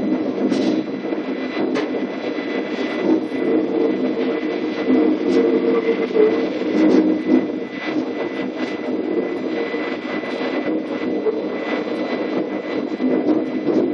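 DB Class 420 electric multiple unit running, heard from inside the driver's cab: a steady hum with a faint high whine, and short clicks every second or so as the wheels run over points and rail joints.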